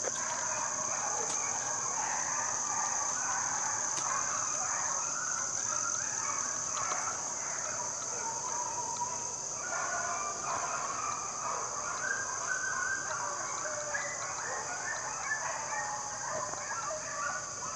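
Pack of foxhounds baying in chorus while running a fox: many overlapping voices calling continuously. A steady high insect trill runs behind.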